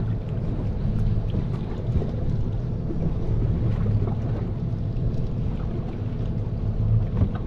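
Steady low hum of a boat's engine idling, with wind on the microphone.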